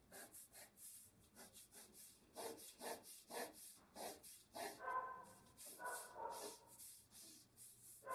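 Graphite pencil drawing on paper, faint short scratchy strokes about twice a second as the lines of a rectangle are sketched.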